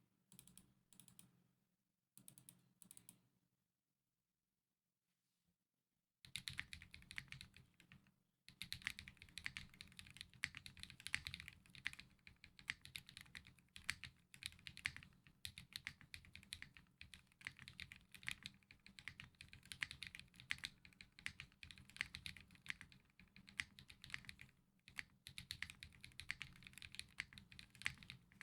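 Typing on an LM60 v2 tadpole-mounted custom mechanical keyboard with Akko Matcha Green switches, JTK Emerald ABS keycaps and an FR4 plate, stock with no dampening mods. A few short bursts of keystrokes, a pause of about three seconds, then steady continuous typing.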